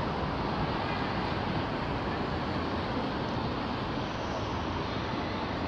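Steady drone of road traffic on the elevated motorway overhead, an even rumble that neither rises nor falls.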